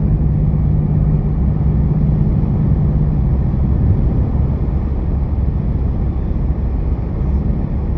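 Car on the move heard from inside the cabin: a steady engine drone and road noise, with a low hum that eases off about four seconds in.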